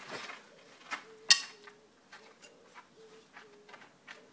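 A child's baseball bat swung through the air with a short whoosh, followed by a couple of sharp knocks, the loudest just over a second in.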